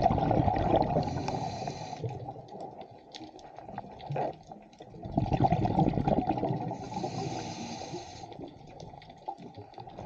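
A scuba diver breathing through a regulator underwater: two exhalations of rumbling, gurgling bubbles, each with a brief hiss near its end.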